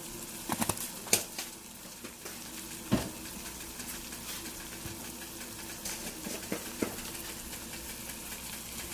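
Onion and garlic frying in a pan with a low sizzle under a steady hum, broken by a few light clicks and knocks of utensils or seasoning containers against the pan.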